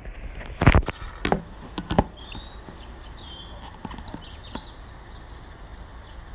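Several sharp knocks and rustles of a handheld phone being moved in the first two seconds, then a bird chirping a few times against a steady outdoor background.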